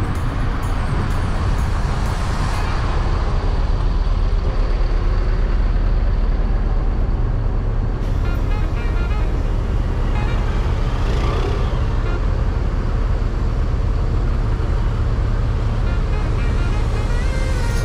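Road vehicle noise, a steady heavy low rumble of motor traffic, with faint music coming in about halfway through.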